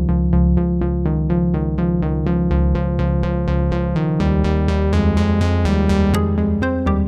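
Electronic background music: rapid repeating synthesizer notes over a steady bass line.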